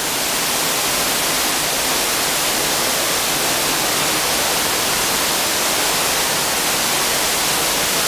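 Waterfall pouring, a steady rushing hiss of falling water that holds at one level.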